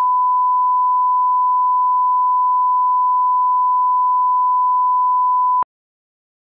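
Broadcast line-up test tone played with colour bars: one steady, unbroken pure beep, the reference for setting audio levels, cutting off suddenly about five and a half seconds in.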